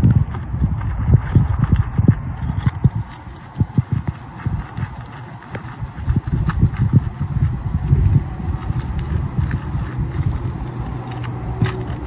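Putty knife being worked under an asphalt shingle tab against a sealant strip that will not release: irregular knocks and thumps with scraping.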